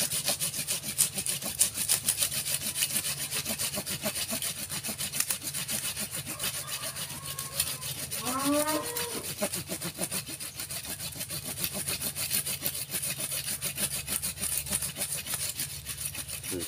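Hand saw cutting through a thick, hard woody stem at the base of a bonsai stock, in quick, even back-and-forth strokes.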